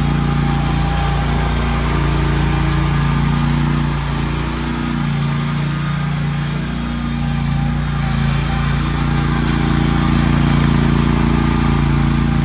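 2015 Country Clipper riding lawn mower's engine running steadily, dipping slightly in level midway and then picking up again.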